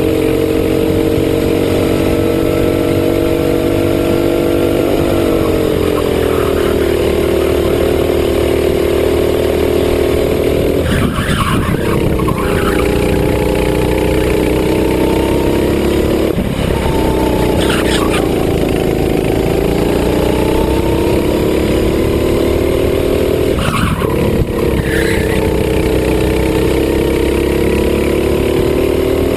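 Racing kart engine heard from onboard at race speed, its pitch dropping about five seconds in and dipping briefly three more times before climbing again, as the kart slows for corners and accelerates out. A few short rattles sound over it.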